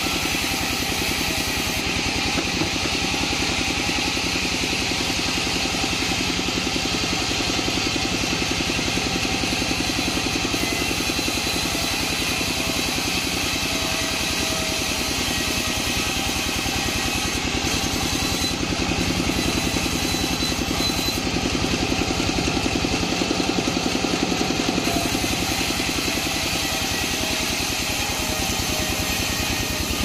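Vertical band sawmill running steadily, its drive engine keeping up a fast even beat while the blade cuts lengthwise through a waru (sea hibiscus) wood slab.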